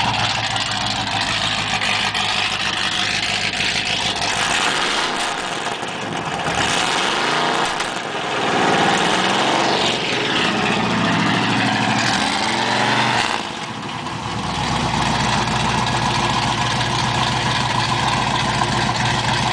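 1974 Pontiac Trans Am's 455 V8 running with no mufflers: idling, then revved up and let fall back a couple of times through the middle, then settling back to a steady idle.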